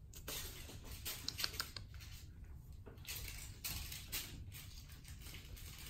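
Faint, scattered light taps and rustles of kittens playing with a dangled toy on a hard floor.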